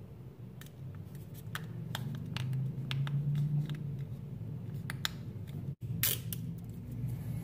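Light plastic clicks and crackles of a small plastic LED controller being handled while its double-sided adhesive tape backing is picked at and peeled, over a steady low hum. The sound cuts out for an instant about six seconds in.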